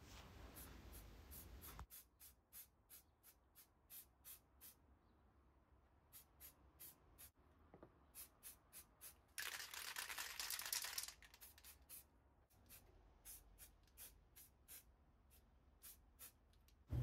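Aerosol can of heat-resistant epoxy paint spraying: a faint hiss, with one louder burst lasting about a second and a half midway. Faint quick ticks repeat about three times a second throughout.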